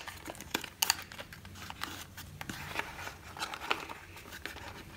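Small cardboard box of gouache paint tubes being opened by hand, its end flap pulled back and a tube taken out: light crinkling of the card and a scatter of small clicks and taps, the sharpest about a second in.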